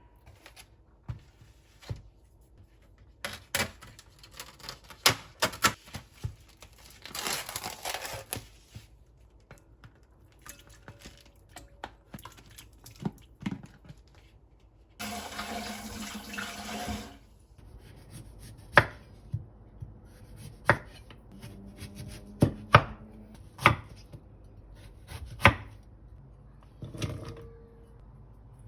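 Kitchen prep sounds: irregular knocks of a knife on a cutting board and dishes and utensils being handled, with two short stretches of rushing noise.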